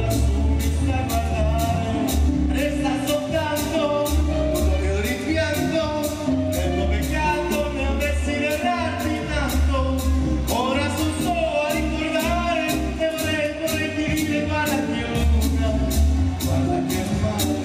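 A man singing an Italian song into a handheld microphone over an instrumental backing with a strong bass and a steady beat.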